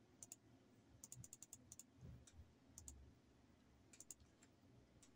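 Faint clicks from a computer mouse and keyboard, scattered, with a quick run of about seven clicks about a second in.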